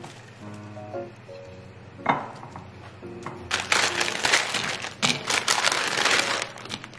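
Soft background music, then from about halfway through a loud crinkling, rustling handling noise lasting about three seconds.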